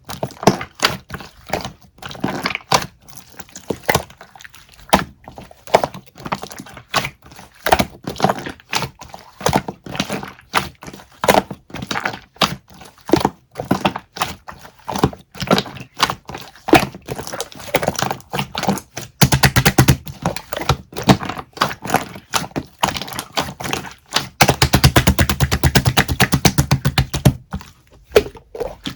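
A run of sharp clicks and cracks, close up and irregular. Twice in the second half it thickens into rapid, dense crackling lasting a few seconds each time.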